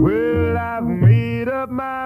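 A 1949 slow rhythm-and-blues record playing: a held melody line that slides and bends, with a short break about halfway, carried over the band.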